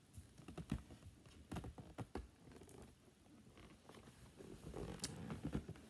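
Cardboard toy box with a clear plastic dome being handled and tilted: scattered light taps, knocks and rustles of cardboard and plastic.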